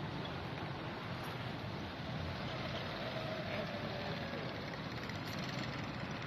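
Steady traffic noise of a city street, with vehicles running.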